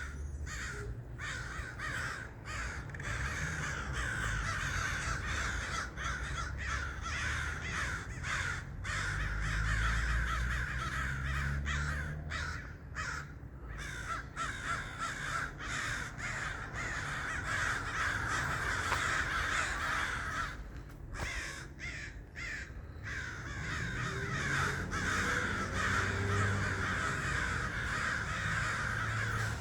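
A large flock of crows cawing together, a dense chorus of overlapping calls that thins out briefly a few times. A low rumble lies under it for a few seconds about a third of the way in and again near the end.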